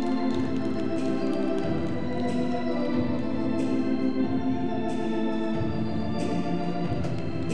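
Organ music playing a foxtrot for roller dancing, in sustained chords, with a few sharp clicks scattered through.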